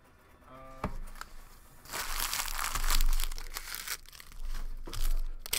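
Plastic wrapping of sealed trading card packs being torn open and crinkled. The loudest tearing runs from about two to four seconds in, with another short burst near the end.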